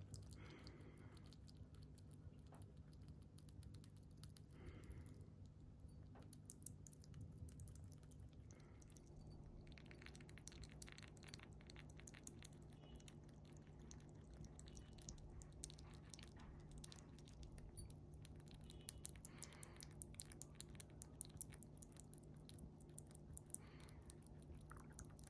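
Siberian chipmunk chewing jelly food for small animals with its mouth open: faint, rapid, wet smacking clicks that grow denser from about ten seconds in.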